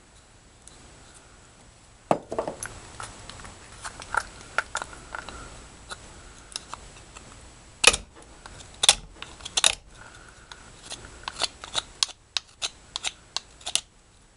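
Irregular sharp wooden clicks and knocks from small pieces of fatwood being handled against a bench vise and tools, starting about two seconds in, with a cluster of louder knocks past the middle.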